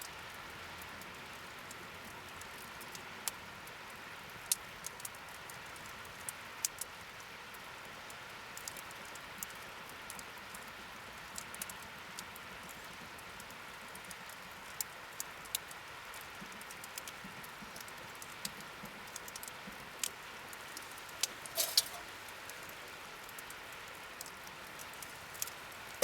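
Wood fire crackling: a steady hiss with sharp pops every second or so, and a quick run of louder pops a few seconds before the end.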